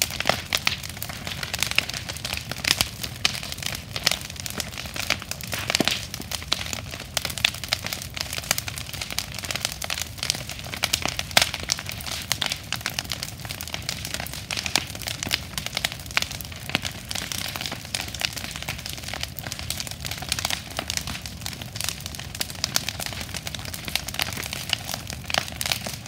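Large wood bonfire burning hard, crackling and popping irregularly, with many sharp snaps over a steady low rushing noise.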